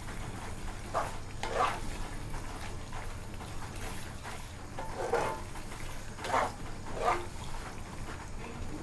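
A spatula stir-frying pork in panang curry paste in a wok, making a handful of separate scraping strokes.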